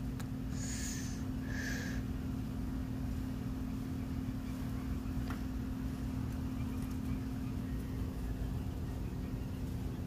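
A steady low mechanical hum, one constant tone over a low rumble. Two short rustling noises come about half a second and a second and a half in.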